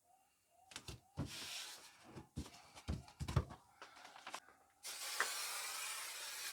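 A few knocks and rustles of handling, then near the end a steady hiss of an aerosol spray adhesive being sprayed onto the back of a paper template for a little under two seconds.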